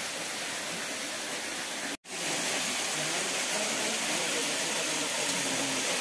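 Steady rush of falling and flowing water from a forest stream and waterfall, broken by a split-second dropout about two seconds in.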